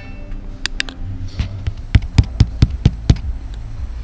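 A run of sharp taps and knocks: a few scattered ones, then a quick string of about four a second near the middle, over a low background rumble.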